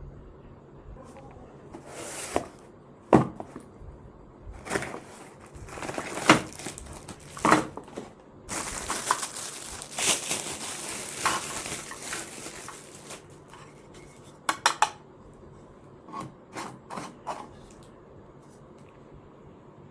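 Small hard objects clattering and knocking against each other in a string of sharp clacks, with a few seconds of continuous scraping in the middle.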